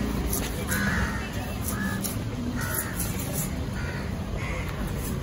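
Crows cawing, a run of about six harsh caws each under a second apart, over steady background noise. Sharp knocks of a cleaver chopping fish on a wooden block come in between.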